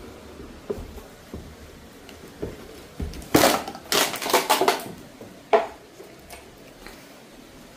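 Hard objects clattering: a few light knocks, then a loud run of rattling clatters about three seconds in lasting about a second and a half, and one more sharp knock soon after.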